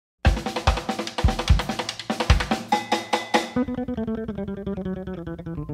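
A jazz band's instrumental intro. Drums strike hard with deep bass-drum thumps for about three and a half seconds, then drop out, and plucked strings play on in a dense run of notes.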